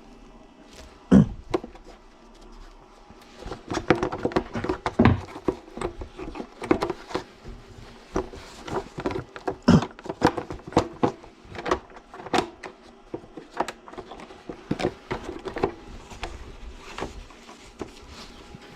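Irregular sharp knocks and clicks, several a second, some ringing briefly: hard objects being handled and struck against one another.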